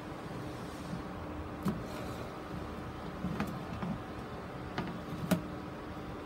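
Sharp plastic clicks and knocks, about four of them with the loudest near the end, as a plastic grid mounting board holding a staghorn fern is handled and turned over. A steady faint hum runs underneath.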